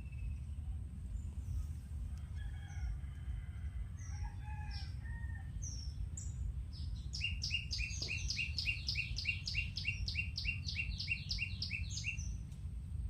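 Birds calling: scattered high chirps, then a fast run of about twenty repeated sharp, down-slurred notes, roughly four a second, lasting some five seconds and stopping near the end. A steady low rumble runs underneath.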